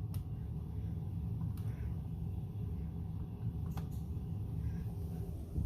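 Blower of a 2020 Ruud furnace running in cool mode, a steady low rumble of moving air, with a few faint clicks.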